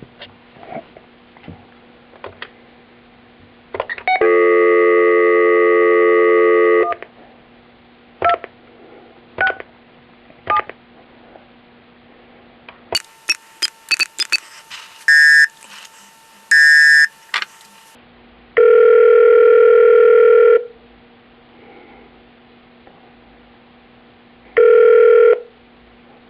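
Telephone call being placed: clicks and a steady dial tone for about three seconds, then key tones as the number is dialed. After that comes the ringback tone, ringing once for about two seconds and starting again briefly near the end.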